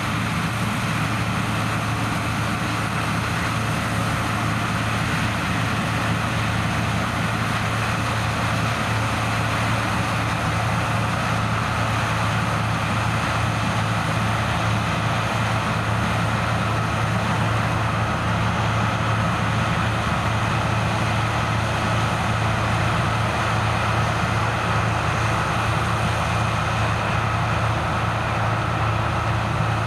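Heavy diesel farm machinery running steadily during corn harvest, a constant low engine hum with machinery noise over it and no change in speed.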